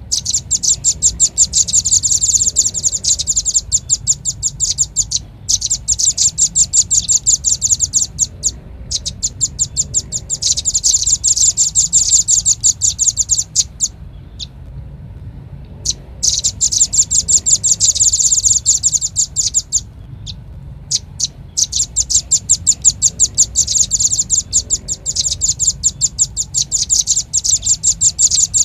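Velvet-fronted nuthatch calling: long runs of rapid, sharp, high chips, each run lasting a few seconds with short breaks between, over a faint low hum.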